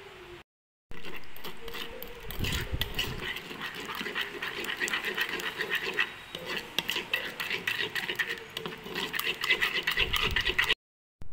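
Metal spoon stirring a watery chili sauce in a wooden mortar: a fast, continuous run of small clinks and scrapes against the wood, over a faint steady hum.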